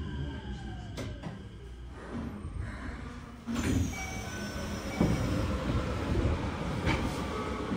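A Keikyu 1000-series train with a Mitsubishi full-SiC VVVF inverter pulling away from a stop, heard from inside the car. About halfway through, the inverter and traction motors set in suddenly, with several thin whining tones at different pitches as it accelerates. A sharp knock from the wheels comes about five seconds in, with another near the end.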